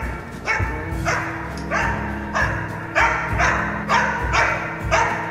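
Belgian Malinois service dog barking repeatedly at a man in a bite suit, about one bark every half second or so, over background music.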